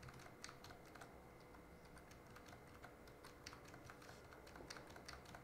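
Faint, irregular taps on a computer keyboard, the number keys being used to nudge selected points a step at a time, over a faint steady hum.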